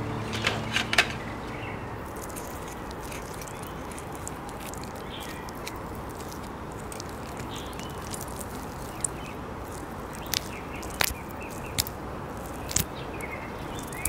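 Quiet steady hiss with a few scattered sharp clicks and taps as raw chicken feet are picked up and handled; near the end, scissors snip at a claw tip.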